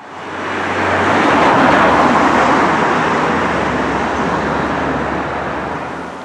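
A motor vehicle passing close by: engine hum and tyre noise swell to a peak about two seconds in, then slowly fade.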